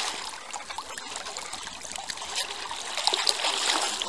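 Water lapping and trickling: a steady splashy hiss broken by many small splashes.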